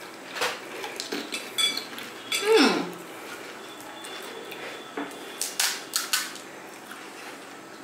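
Crisp fuchka (panipuri) shells cracking and crunching as they are broken open, with spoons clinking against glass bowls: a scatter of short sharp clicks, bunched near the start and again about five and a half seconds in. A brief voiced sound with falling pitch comes about two and a half seconds in.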